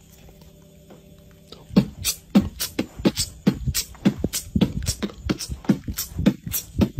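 A dog with its nose right at the microphone, puffing out quick rhythmic breaths. After a quiet start of nearly two seconds, the sharp puffs run at about three to four a second and sound like beatboxing.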